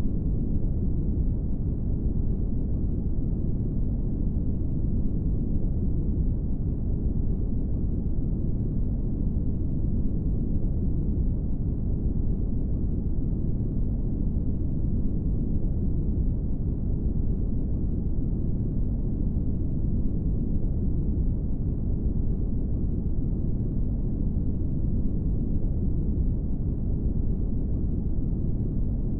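Steady brown noise: a constant, deep rumbling hiss that never changes.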